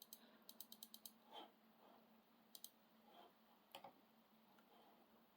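Faint clicks of a laptop's keys and buttons being pressed: a quick run of about seven in the first second, then a few single clicks spaced out, over a faint low hum.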